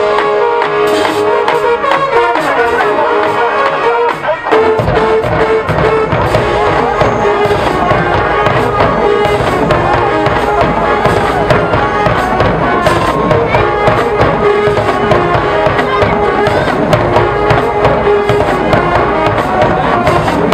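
College marching band playing: the brass holds sustained chords, then about four seconds in the drum line comes in with a steady beat under the horns and the band plays on.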